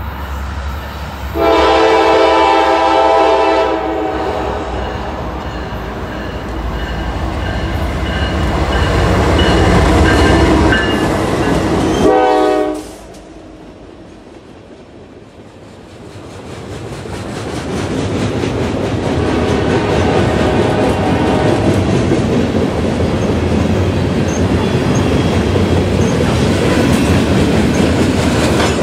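Norfolk Southern diesel freight locomotive approaching over a low engine rumble, sounding its multi-chime air horn in a long blast about a second and a half in, with a short blast near the middle. After a sudden drop, loaded freight cars roll past close by, their wheels clacking and rumbling on the rails and growing louder.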